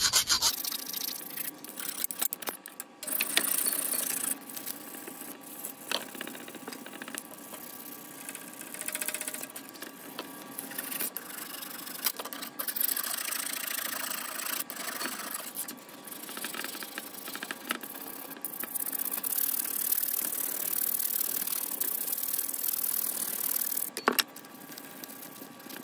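Half-round hand file rasping in repeated strokes across a polished stainless steel drip rail molding held in a bench vise, knocking down the high spots in the dented trim. The filing stops near the end.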